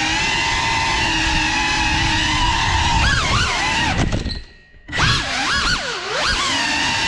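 GEPRC CineLog 35 cinewhoop quadcopter's motors and propellers whining at a steady pitch, then swinging up and down in pitch as the throttle is worked. The whine nearly cuts out for about half a second past the middle and comes back with a sudden surge before settling steady again.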